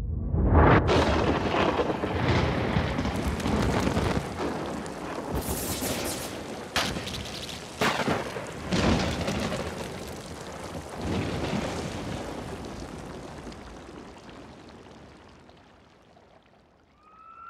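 Heavy downpour of rain in a storm, with several sharp cracks and booms in its first half; the storm noise then fades away gradually toward the end.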